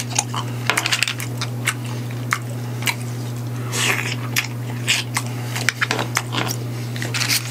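Steamed Manila clams being eaten by hand close to the microphone: sharp, irregular clicks and clinks of the hard clam shells, with a few short wet mouth noises.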